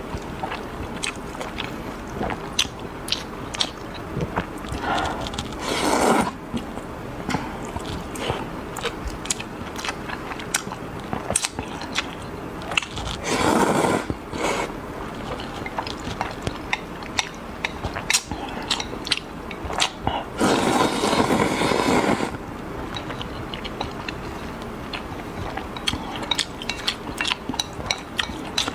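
A person eating noodles: steady wet chewing and mouth clicks, with three long slurps of noodles, one about six seconds in, one near the middle and a longer one about two-thirds through.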